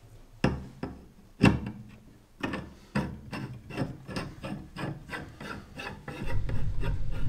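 Metal and plastic parts of a 3D printer's X-axis gantry knocking and rubbing as the assembly is handled and fitted: a few separate sharp knocks, then a run of quick rasping clicks at about three a second. A loud low steady hum comes in about six seconds in.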